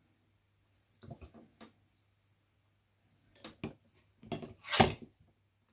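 Light metallic clinks and clatter of hand tools and carburetor parts being handled on a workbench: a few faint scattered clicks, then a louder cluster of clacks about four to five seconds in.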